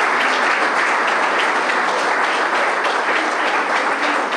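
A standing audience applauding steadily, many people clapping at once.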